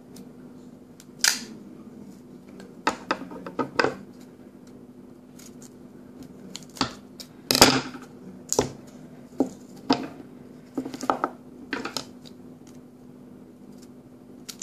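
Duct tape being worked by hand: irregular short rips and crackles of the tape and snips of scissors, about a dozen sudden bursts, the loudest near the middle lasting about a third of a second.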